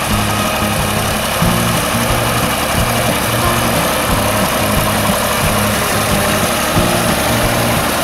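Massey Ferguson tractor engine running steadily as it pulls a rotary hay rake through cut hay, under background music with a bass line.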